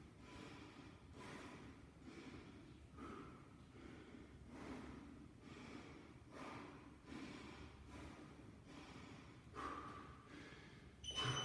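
A man breathing hard and rhythmically through a slow push-up, a quick breath about every half second to second. Near the end a short electronic beep, the interval timer on his phone.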